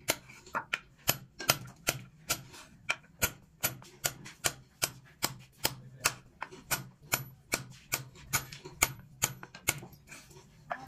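Small hammer tapping a metal punch against a wooden board, a steady run of sharp metallic taps about two to three a second, stamping a scalloped border of notches into the wood. The taps grow weaker and sparser near the end.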